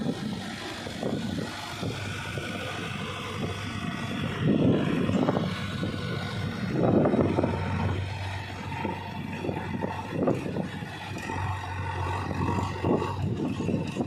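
Diesel engine of a JCB 3DX backhoe loader running while it digs and loads earth, the engine note swelling under load several times as the bucket works.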